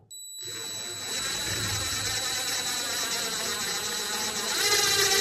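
Power drill running steadily with a high motor whine, drilling a hole into the drywall through a long bit extension. Near the end the pitch bends up and back down.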